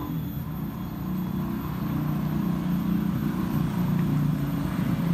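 Low, steady rumble of a vehicle engine running nearby, growing louder toward the end.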